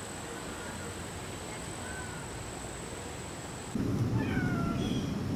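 A steady hiss with a thin high whine, then, about three and a half seconds in, rumbling wind on the microphone sets in suddenly and a domestic cat meows once, its pitch falling.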